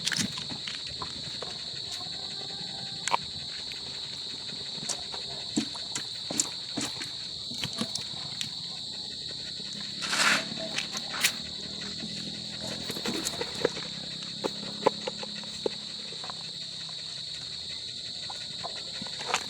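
A steady, high insect chorus, one continuous trill, with scattered light clicks and knocks over it and a louder rustle about ten seconds in.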